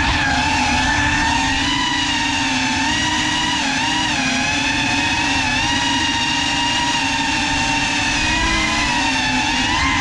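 Small quadcopter drone's electric motors and propellers buzzing in a steady whine. The pitch wavers slightly up and down as the throttle is adjusted.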